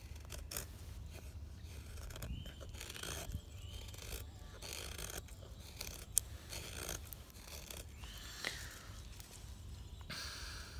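Knife blade shaving thin curls off a wooden stick to make a feather stick: a series of short scraping cuts, about one a second, with a sharp click about six seconds in.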